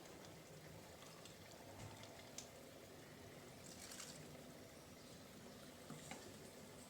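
Near silence: faint room tone with a few soft, brief clicks.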